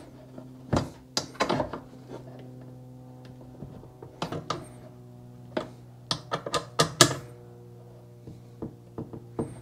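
Metal hand tool clicking and clinking on the subframe bolts as they are tightened: scattered sharp clicks, with a quick run of them about six to seven seconds in.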